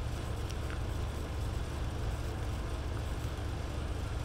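Steady low hum with a faint even hiss: background room noise picked up by the microphone.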